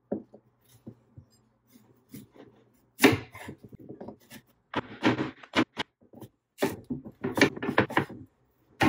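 Kitchen knife slicing through raw sweet potatoes and knocking on a wooden cutting board, in irregular strokes that come in a quicker run in the second half.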